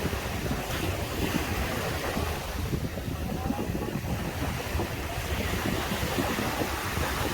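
Caribbean surf washing continuously onto a sandy beach, with wind rumbling on the microphone underneath.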